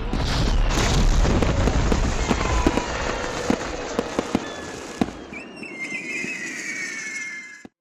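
Fireworks going off: a dense crackle with many sharp bangs, then near the end several whistles sliding down in pitch, before the sound cuts off suddenly.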